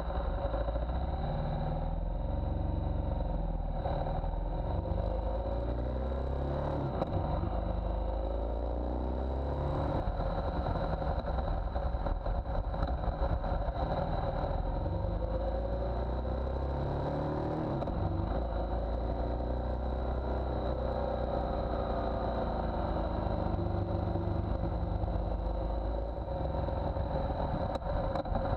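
A 2017 BMW R1200GS Adventure's boxer-twin engine running at a steady cruise while riding, with heavy wind and road noise on the microphone and a steady high-pitched whine.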